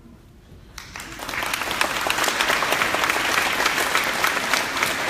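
Audience applauding: clapping breaks out about a second in and quickly swells into steady applause.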